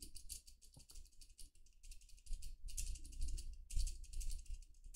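Fingertip tapping rapidly and repeatedly on the touchscreen of a Little Tikes Tobi toy smartwatch: quick, light clicks in short runs with brief pauses between them.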